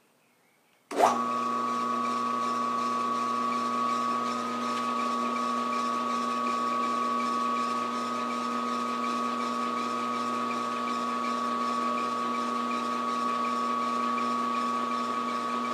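Round column milling machine switched on about a second in, its motor and spindle then running steadily with a homemade fly cutter spinning. The sound is an even whine with a few held tones.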